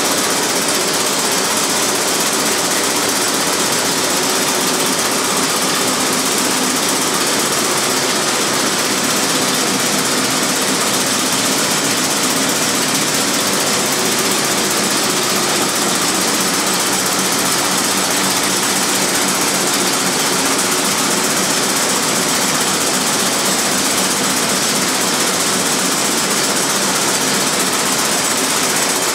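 Warner & Swasey servo pindrafter running steadily as it draws wool slivers through its pins: an even, continuous mechanical chatter with no pauses.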